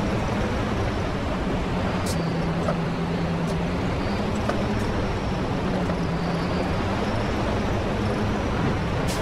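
Semi truck running, a steady low engine drone with road noise whose pitch dips slightly a couple of seconds in and then recovers. A few faint clicks sound over it.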